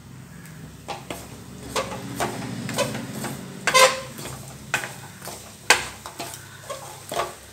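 Wooden spatula stirring a dry filling of roasted coconut, jaggery and crushed peanuts in a stainless steel kadai. Irregular scrapes and knocks against the pan, a few of them ringing briefly, with the sharpest knocks near the middle.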